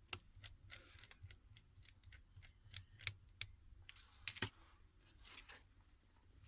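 Light clicks and taps, about fifteen in quick, irregular succession over the first four and a half seconds, the last one the loudest.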